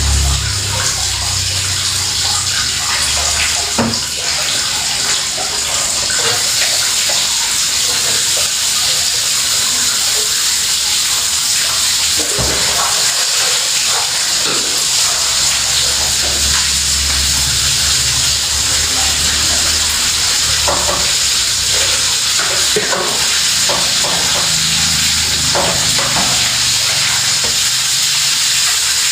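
Water running steadily from a kitchen tap, with occasional light clinks and knocks of dishes or utensils.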